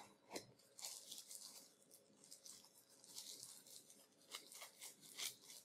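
Faint crinkling and rustling of a thin translucent plastic wrapper as a wall adapter is unwrapped, a scatter of short crackles.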